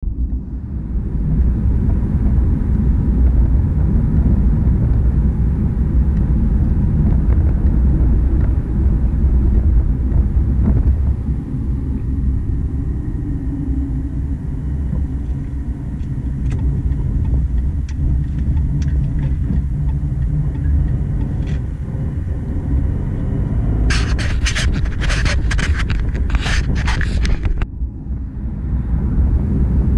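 Steady low road and engine rumble of a car driving, heard from inside the cabin. Near the end, a run of sharp rattling clicks lasts a few seconds.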